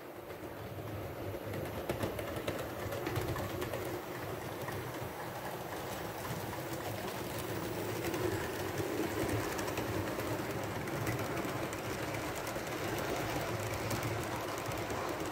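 Model railway train of two Pacific steam locomotives hauling passenger coaches along the track: a steady whirr of the motors and wheels with light clicking over the rail joints. It grows louder as the train comes close, about eight seconds in.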